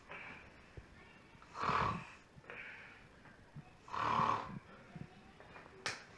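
A person snoring: two loud snores about two seconds apart, each about half a second long, with softer breaths between them. A sharp click near the end.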